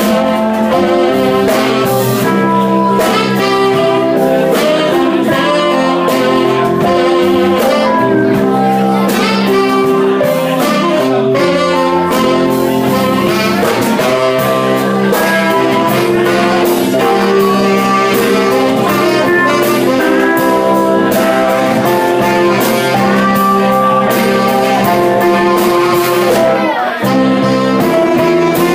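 Live band playing: saxophone, electric guitars, keyboard and drums.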